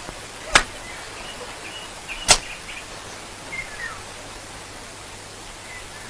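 Two brief, sharp sounds, about 0.6 and 2.3 seconds in, over a steady outdoor background with a few faint bird chirps.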